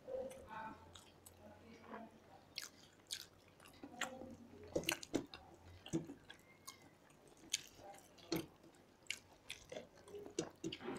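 Two people eating rice and fish curry with their fingers: close, wet chewing and mouth smacks mixed with fingers working the rice, heard as irregular short clicks and smacks.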